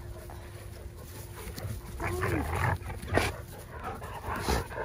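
Great Danes and a golden retriever at rough play: a short playful growl rising and falling in pitch about two seconds in, then a single sharp sound about a second later.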